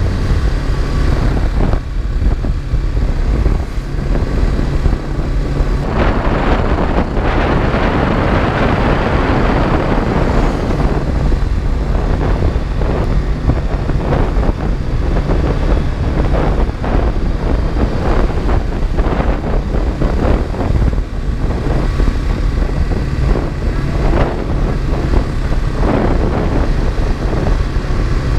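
BMW G310GS single-cylinder motorcycle engine running steadily while riding along a road, with wind rushing over the microphone, strongest about a quarter of the way in.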